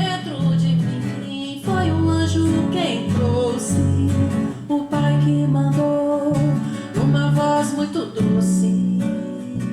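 Music: a song with strummed acoustic guitar and singing.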